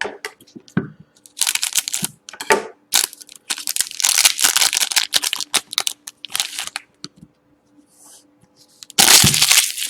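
Crinkling and tearing of a sealed trading-card pack's wrapper as it is torn open by hand, in irregular spells with one long stretch in the middle.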